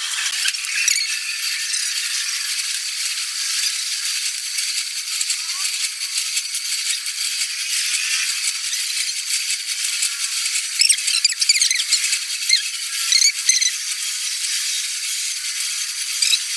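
Metalworking tool noise: a steady scratchy hiss with scattered clicks and rattles, the clicks coming more often in the second half.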